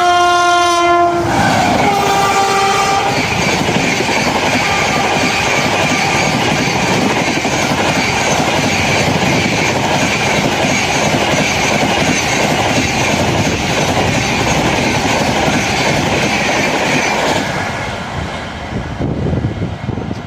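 WAP-7 electric locomotive's horn sounding two blasts, the first about a second long and the second a little higher in pitch, followed by the loud steady rush and wheel clatter of the Rajdhani Express passing at speed, which dies away in the last few seconds.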